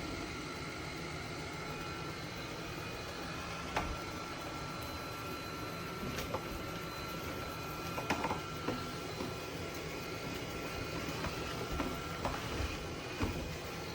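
Robot vacuum running: a steady fan hum with a faint thin whine, broken by scattered clicks and knocks.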